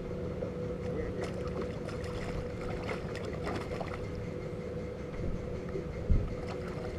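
Wind and water noise on a small fishing boat with a steady low hum, a few light splashes as a hooked fish is landed by hand over the side, and a single thump about six seconds in.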